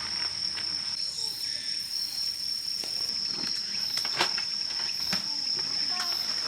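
Insects trilling in one steady, unbroken high-pitched tone, with a few faint clicks.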